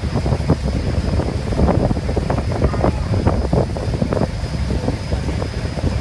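Wind buffeting the microphone on the deck of a moving tour boat, in gusts over a steady low rumble of the boat's engine and water rushing past the hull.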